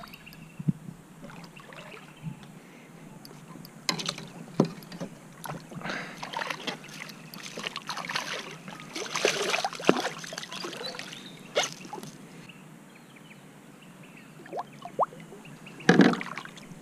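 Water splashing and sloshing beside a kayak as a hooked fish thrashes at the surface. The splashes come in scattered bursts, thickest in the middle, with another burst near the end as a hand goes into the water.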